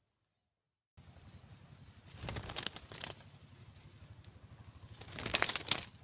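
Parrots flapping their wings on a branch in two short bursts of rapid flaps, about two and five seconds in, the second the louder, over a steady high-pitched insect drone that starts about a second in.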